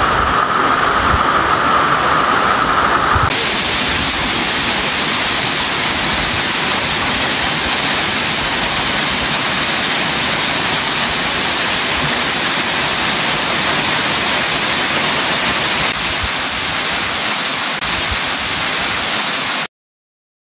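Waterfall pouring into a rock plunge pool: a loud, steady rush of falling water. Its character changes about three seconds in, and it cuts off abruptly near the end.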